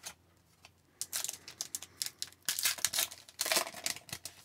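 Wrapper of an Upper Deck Series 2 hockey card pack being torn open and crinkled by hand: a quick run of crackles starting about a second in.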